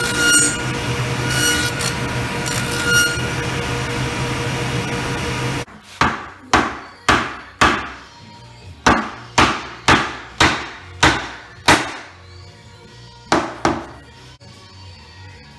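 A table saw with a stacked dado blade runs with a steady whine for about five and a half seconds, then stops abruptly. A black mallet then strikes walnut aprons about a dozen times in uneven runs of sharp knocks, seating the half-lap joints.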